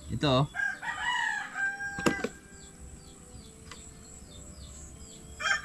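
A rooster crows once, starting about half a second in: a long call that rises and falls over about a second and a half. A sharp click comes near its end, and faint short bird chirps repeat after it.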